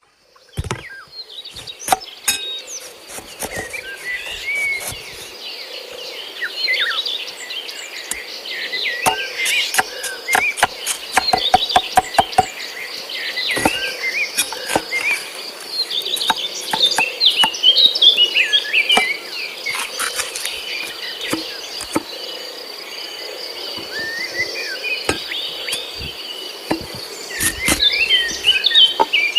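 Steady, high-pitched insect drone with birds chirping over it, broken by frequent sharp clicks and knocks, several of them in quick runs.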